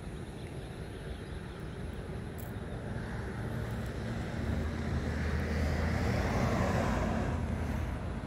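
A vehicle driving past on the street: engine and tyre noise swells to a peak about six to seven seconds in, then fades, over a steady background traffic hum.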